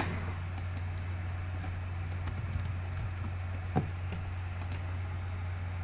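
A few faint, scattered clicks from working a computer, over a steady low hum.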